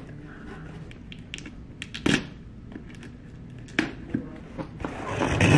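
A cardboard shipping box being handled and opened on a tabletop: a few sharp knocks and taps of the cardboard, then a louder, longer scraping rustle of cardboard near the end.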